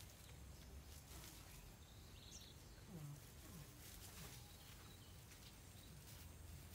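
Near silence: faint outdoor ambience with scattered soft ticks and rustles, a brief faint chirp and a few faint low falling sounds about three seconds in.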